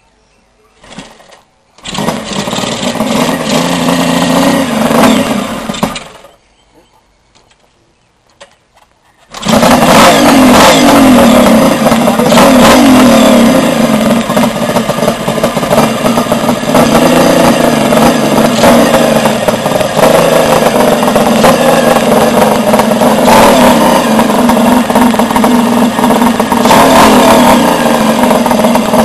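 Motorcycle engine started about two seconds in, running for about four seconds and then dying; it is restarted about nine seconds in, catches and keeps running steadily.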